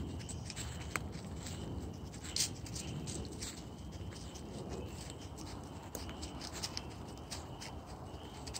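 A faint frog chorus at night, high short trills repeating about once a second, with scattered sharp clicks and rustles over a low rumble; the loudest click comes about two and a half seconds in.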